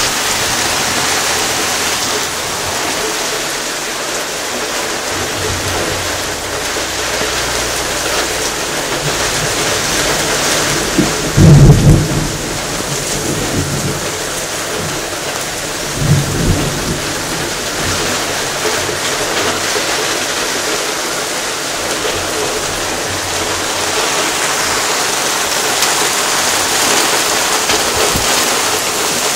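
Summer thunderstorm: rain falling steadily, with thunder. A low rumble builds, then a loud clap of thunder comes partway through, and a shorter one follows a few seconds later.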